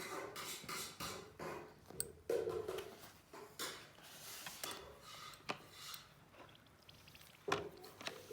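Small metal parts and tools being handled on a work surface: irregular clicks, taps and short scrapes, with the sharpest click near the end.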